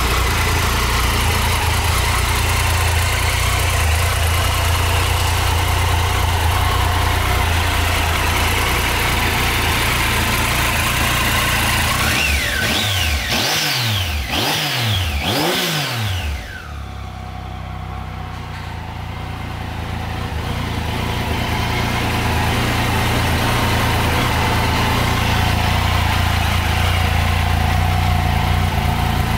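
Triumph Tiger 800's three-cylinder engine idling, blipped up and back down three times in quick succession about halfway through, then settling back to a steady idle.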